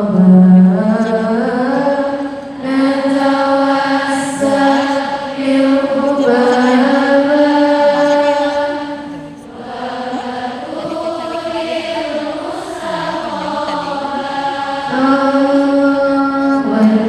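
A voice chanting unaccompanied in long, drawn-out melodic phrases, each held and ornamented for several seconds, with short breaks between them.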